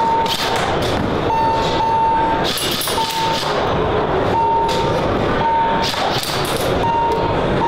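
Loud, steady din of a busy exhibition hall with an electronic beep near 1 kHz that keeps starting and stopping, and a few sharp cracks from airsoft guns being test-fired.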